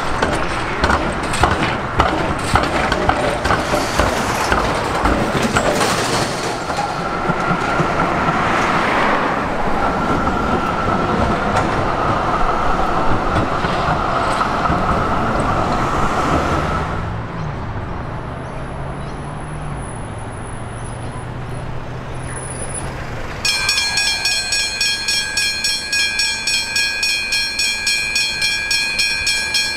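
A rail vehicle rolls over the crossing with rapid wheel clatter and a steady whine, then fades to a quieter hum. About two-thirds of the way in, level crossing warning bells start suddenly and ring steadily about twice a second.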